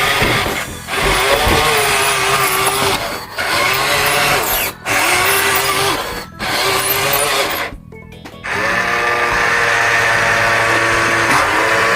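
Small electric motors and gearboxes of a remote-control toy construction vehicle whining in short runs of about a second and a half, winding up at each start and down at each stop, with brief pauses between runs and a longer one about two thirds of the way through.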